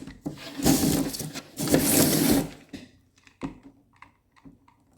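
Screen spline roller pressing a rubber spline into the channel of a screen frame: two loud rubbing, scraping strokes of about a second each, followed by scattered light clicks and taps.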